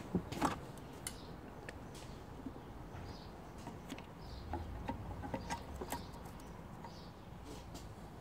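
Scattered light clicks and knocks of valve springs and valve-stem parts being handled on a cylinder head, with two sharper knocks about half a second in.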